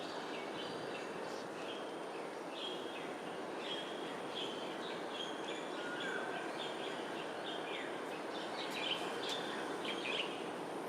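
Small birds chirping in many short, repeated high notes, several a second, over a steady background rumble of distant urban noise. A thin steady high tone runs underneath.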